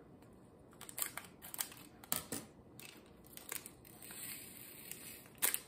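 Scissors snipping at a small plastic bag of diamond-painting drills: several sharp clicks at uneven intervals, with light plastic handling between them.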